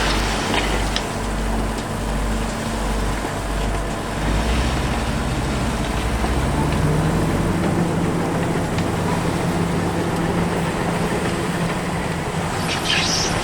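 Heavy diesel engine of mining earthmoving equipment running. It pulses low for the first few seconds, then its pitch steps up about six seconds in and holds steady. A few short knocks come near the end.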